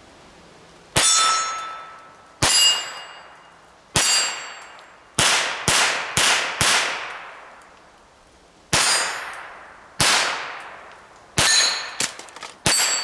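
Ruger Charger .22 LR semi-automatic pistol firing about a dozen shots at an uneven pace, with a quick run of four shots in the middle. Several shots are followed by a brief metallic ring.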